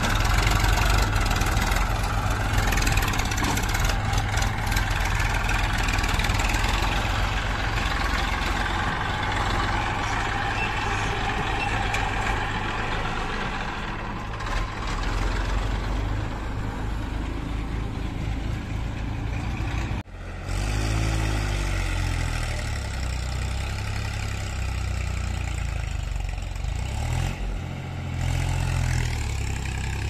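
Massey Ferguson tractor's diesel engine running as it hauls a trolley loaded with soil. The sound drops out for an instant about two-thirds of the way through, after which the engine note rises and falls briefly.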